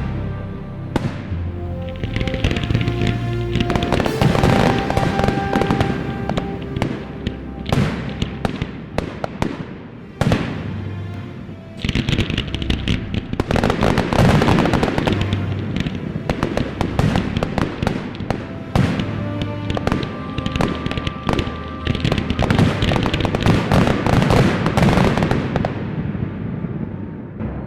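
Fireworks display: dense, rapid bangs and crackling in waves, with a short lull about two thirds of the way through and fading out near the end, over music.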